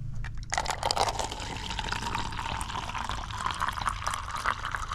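Hot coffee pouring in a steady stream from a stainless steel vacuum jug into a paper cup, starting about half a second in.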